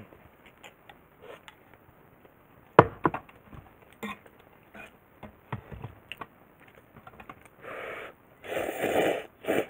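A sharp knock and a few light clicks of chopsticks, bowl and the metal hangō mess tin being handled, about three seconds in. Near the end, a loud noisy slurping of hot ramen noodles lasting over a second.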